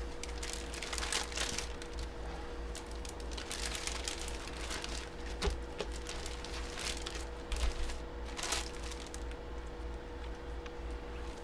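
Packaging being handled: irregular crinkling and rustling with a couple of light knocks, over a steady faint hum.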